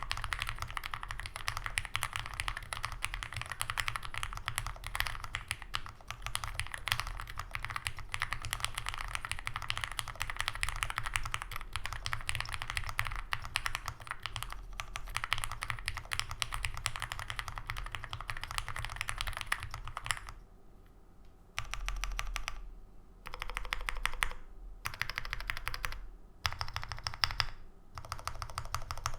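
Mechanical keyboard being typed on: lubed Cherry MX Black Hyperglide linear switches on a full aluminium plate in a foam-filled Owlab Spring case, with GMK keycaps clacking. There is fast continuous typing for about two-thirds of the time, then short bursts of keystrokes separated by brief pauses.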